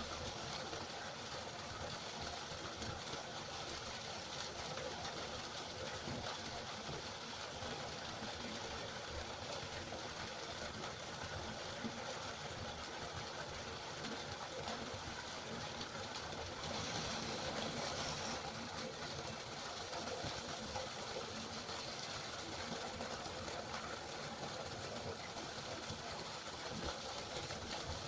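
River water flowing in a steady rushing hiss, swelling briefly about seventeen seconds in.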